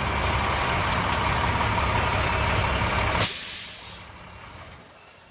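Large International diesel truck idling with a steady rumble, then about three seconds in a sharp hiss of released air from its air brakes, the sign of the parking brake being set, and the engine falls silent as it is shut down for fueling.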